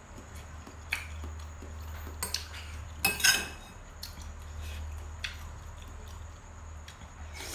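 Spoon and fork clinking against a bowl now and then while eating, the loudest clatter about three seconds in, over a steady low hum.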